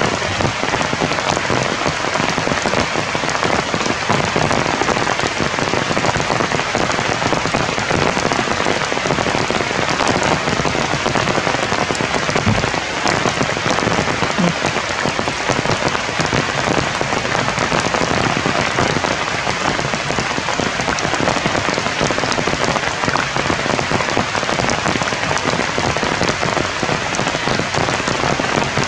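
Steady rain falling on forest leaves: an even hiss with scattered ticks of single drops.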